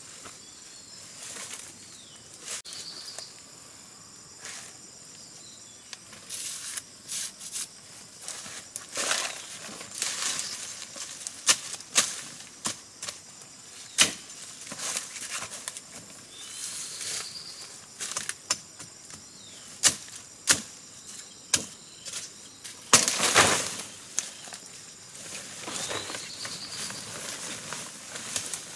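Rustling and swishing of large leaves and stalks, with sharp snaps and knocks, as giant taro plants are handled and pulled. The loudest is a longer rustle about 23 seconds in. A short high chirp sounds three times.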